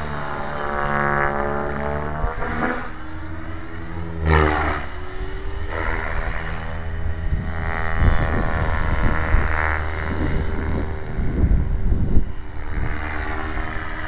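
Align T-Rex 600E electric RC helicopter flying, its rotor and motor whine sweeping up and down in pitch as it manoeuvres, with a brief loud whoosh about four seconds in. Wind buffets the microphone in gusts through the second half.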